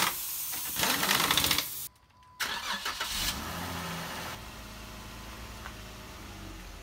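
Jeep Rubicon's engine starting and running, the sound breaking off briefly about two seconds in before settling to a steadier, quieter run.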